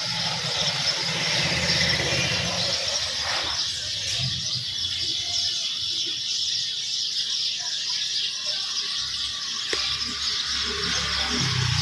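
A group of house sparrows chirping continuously, many calls overlapping, over a low steady hum.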